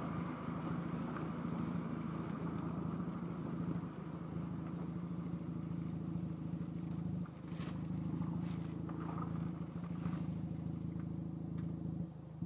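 Ford Focus ST with a Cobb aftermarket exhaust, the exhaust running steadily under way, with brief dips about four and seven seconds in and a drop in level near the end. It is picked up by earbud microphones wrapped in a sock hanging out of the rear hatch, so it sounds muffled.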